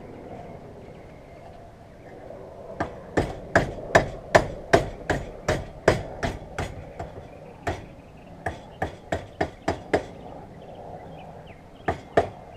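Hand hammer striking hot file steel, bending its end over a round drift pin to shape a fire striker. Sharp blows come about three a second in two runs, beginning about three seconds in, with two last blows near the end.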